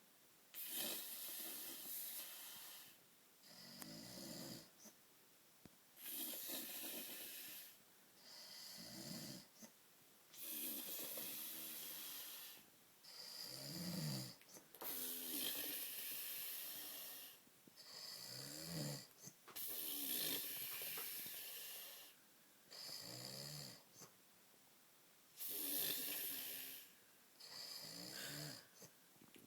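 A man snoring heavily in deep sleep. There are about six slow, regular breaths, each a long hissing rush of air followed by a shorter, low, rattling snore.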